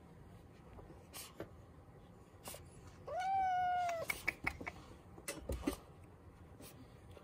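A cat gives one meow of about a second, rising at the start and then held steady, followed by a few light clicks.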